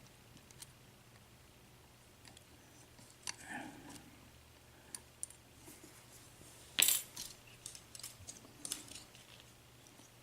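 Faint, scattered metallic clicks and scrapes of a tension wrench and lock pick working in the keyway of a Master ProSeries 6830 six-pin padlock, with one sharper clink about seven seconds in.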